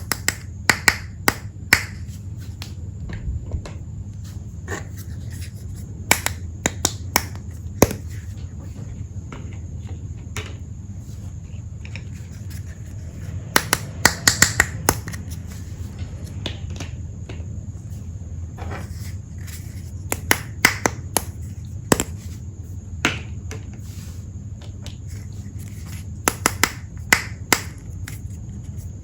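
Small plastic toy pieces clicking and tapping against each other as they are handled, in scattered sharp clicks with a few quick clusters, over a steady low hum.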